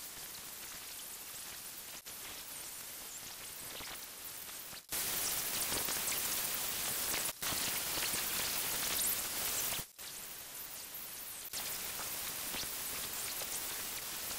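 Mini wire cup brush on an angle grinder scouring an aluminium engine head cover, heard sped up as a steady, rain-like hiss. It comes in several joined stretches with brief dropouts between them and is loudest in the middle.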